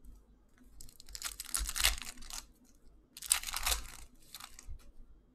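Foil wrapper of a trading card pack being torn open and crinkled by hand, in two bursts of crackling about a second and a half apart.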